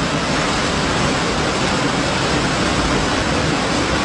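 Torrent of flash floodwater rushing down a street, a steady, unbroken rush of water.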